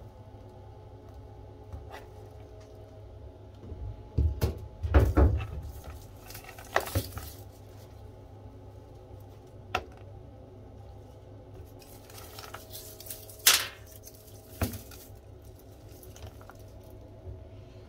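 Hard objects clattering and knocking as aquarium gear is handled: a few sharp knocks, with the loudest burst of clatter about four to five seconds in, over a steady low hum.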